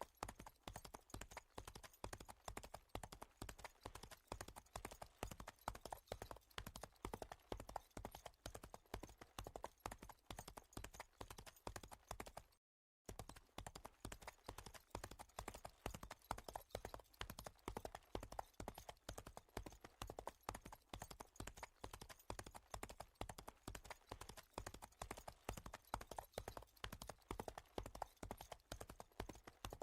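Horse hooves clip-clopping in a steady, even rhythm, with a momentary silent break a little under halfway through.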